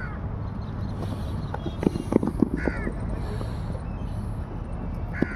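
Outdoor field ambience: a steady low rumble, a quick cluster of sharp knocks about two seconds in, and a few short high calls.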